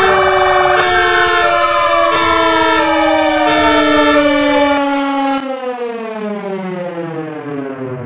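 Fire-truck sirens and a horn sounding together: a horn blasting in short pulses about once a second over a wailing siren that falls in pitch and a low steady siren tone. A bit past halfway the horn stops and the sirens wind down, all falling in pitch.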